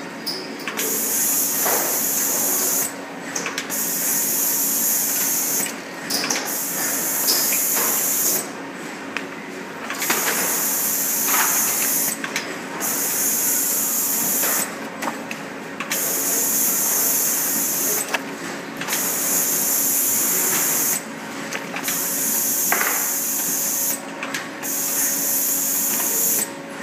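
Robotic hologram-labelling machine running: a loud hiss of compressed air switches on and off in a steady cycle, each burst about two seconds long and about three seconds apart, with short clicks at the changes. A steady electric motor hum runs underneath.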